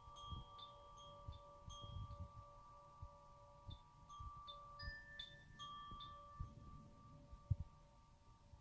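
Cylindrical tuned wind chime swung gently by hand on its cord, its clapper striking the rods now and then in soft, irregular tinkles over several long-ringing, overlapping tones. A low thump a little past three quarters of the way through is the loudest moment.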